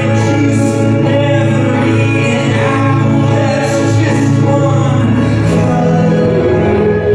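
Live band playing loud music, a voice singing over held low bass notes and layered instrumental lines; about five and a half seconds in, the bass note steps up to a higher pitch.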